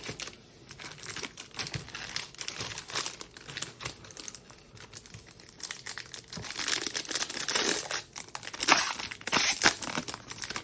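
Plastic trading-card packaging crinkling and tearing as a mega box of football cards is unwrapped and its packs opened, louder in the second half.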